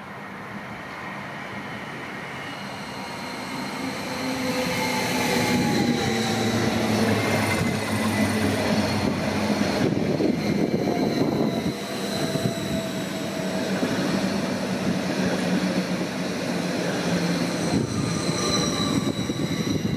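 Train running on the tracks close by, growing louder about four seconds in, with whining tones that slide in pitch and a high steady squeal.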